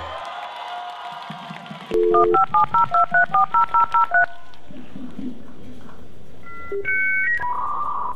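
Telephone sound effect: a brief two-note dial tone, then a quick run of about ten touch-tone (DTMF) beeps as a number is dialed. A few further electronic phone tones follow near the end.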